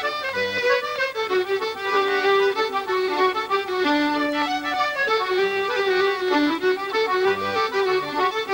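Accordion and fiddle playing an Irish traditional tune together in quick running notes, with a low bass note from the accordion sounding now and then.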